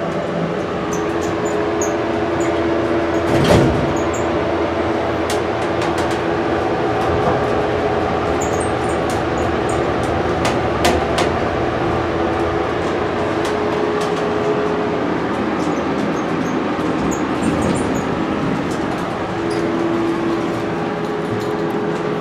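Traction elevator car in motion, a steady rumble of travel under the droning hum of the cab's ventilation fan. A single knock comes about three and a half seconds in, and a few light clicks around the middle.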